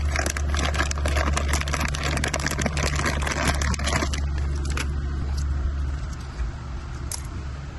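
A clear plastic bag crinkling as it is handled, dense crackling for about the first four seconds, over a steady low rumble that fades about six seconds in.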